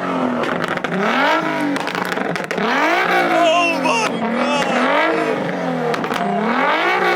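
Car engines revving hard and repeatedly, the pitch climbing and dropping back about once a second, with several revs overlapping.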